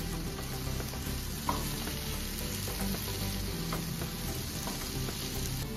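Wooden spatula stirring thick onion-and-masala gravy with boiled quail eggs in a nonstick frying pan, the masala sizzling steadily. A light knock about a second and a half in.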